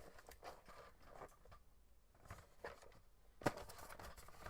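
Faint handling of a boxed toy: light rustles and small taps, with one sharper click about three and a half seconds in.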